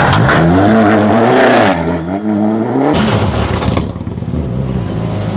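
Rally car engine revving hard and dropping back several times as it takes gear changes while passing close by.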